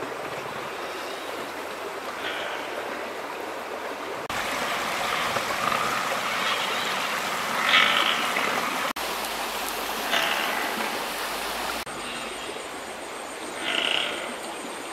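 Steady rushing of flowing stream water, with a few short louder sounds on top, the loudest about 8 seconds in. The sound changes abruptly three times as the scene shifts.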